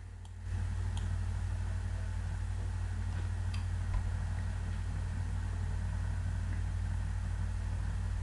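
Steady low hum that steps up in level about half a second in and then holds, with a few faint clicks.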